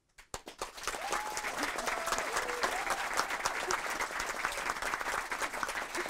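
Audience applause at the end of a talk, breaking out about a third of a second in and swelling within a second to steady, dense clapping, with a few voices calling out over it.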